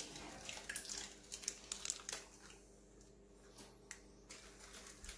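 Crinkling and rustling as a springform cake pan standing on baking paper is lifted out of an oven with cloth oven mitts. The crackles and light clicks come thickest in the first two seconds, with a few more near the end.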